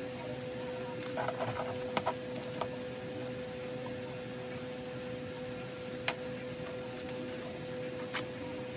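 Clear plastic card sleeves and photocards being handled: a short crinkly rustle about a second in and a few light clicks and taps as cards are moved and sleeved, over a steady hum.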